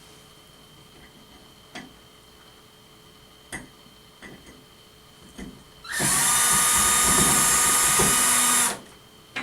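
Power drill running steadily for about three seconds and then stopping, working on the wall rail mounting. A few light knocks come before it.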